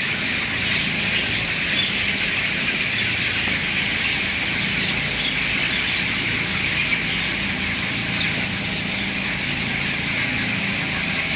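Dense, continuous peeping and chatter of a huge flock of 17-day-old broiler chickens, over the steady low hum of a tunnel-ventilated poultry house's fans.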